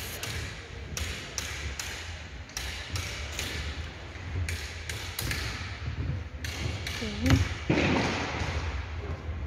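Irregular sharp knocks and bangs, one to three a second, each echoing briefly in a large empty tent hall, over a low background rumble.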